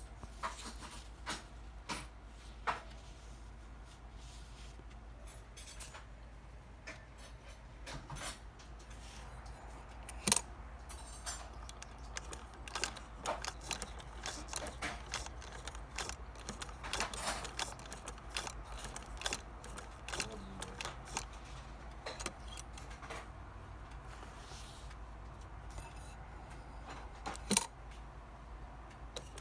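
Irregular light metallic clicks and rattles from an antique Singer 99 sewing machine being handled, not running steadily. There is a sharper knock about ten seconds in and a louder one near the end.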